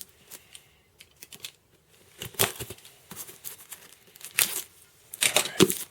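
Handling of a new computer power supply and its packaging: a few light clicks, then several short bursts of rustling and crinkling.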